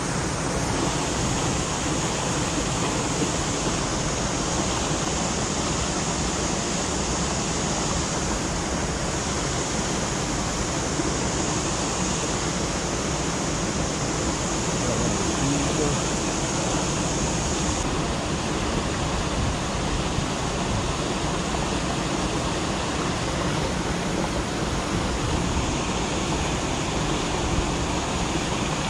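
River water rushing steadily over a low concrete weir and through rocky rapids.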